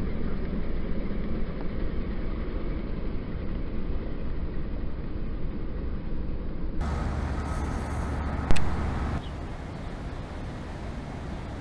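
Low, steady rumble of city street traffic. A single sharp knock sounds about eight and a half seconds in, and the rumble then drops to a quieter outdoor background.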